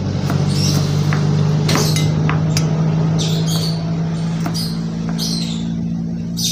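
Kitchen knife slicing shallots on a plastic cutting board: irregular short chops about once a second, over a steady low hum.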